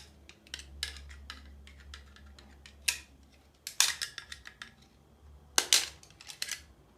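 Irregular sharp clicks and light knocks from light switches and their fittings being handled, over a low steady hum.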